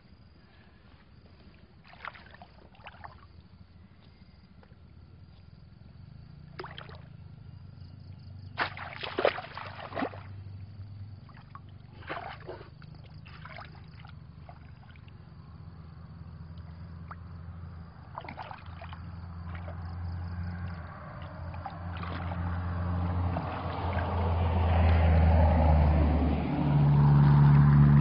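Water splashing and sloshing in short separate bursts as a bamboo plunge basket is pushed and worked in shallow muddy water. Over the second half a motor engine's low hum grows steadily louder, and it is the loudest sound near the end.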